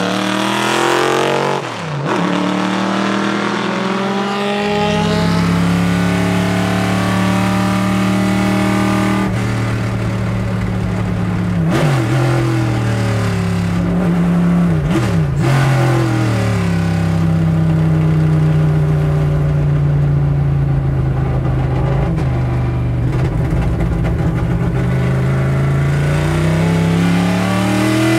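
A Chevrolet Monza IMSA race car's 5.7-litre Chevrolet V8 goes by with its pitch falling. It is then heard from inside the cockpit, running at high revs, with a few quick gear changes that jolt the pitch around the middle, and revs climbing again near the end.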